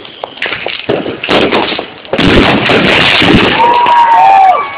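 Aerial fireworks exploding: scattered bangs and crackles, then from about two seconds in a dense, continuous crackling barrage, with a brief falling whistle near the end.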